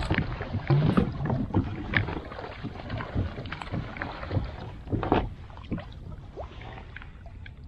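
Irregular knocks and rattles aboard a pedal-drive fishing kayak as a trolling rod is worked out of its rod holder, over a steady low rumble of water and wind. The knocks thin out near the end.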